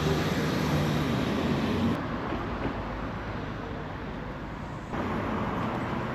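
Street traffic: vehicle engines running and passing along a town street, steady throughout, with two abrupt changes in the background that come from cuts between clips.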